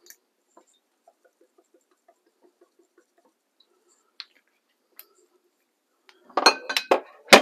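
Mostly quiet with a few faint soft ticks and clicks, then a quick burst of clinking and clattering of glass and kitchen utensils near the end, the last clink the loudest.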